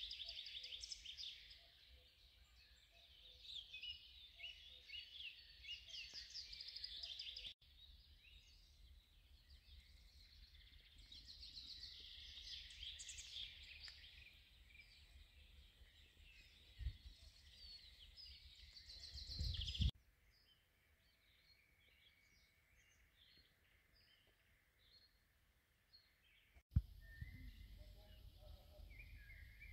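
Faint songbird dawn chorus, several birds singing and chirping at once, breaking off abruptly several times and thinning to scattered chirps after about twenty seconds. A low rumble lies underneath, with a couple of dull thumps.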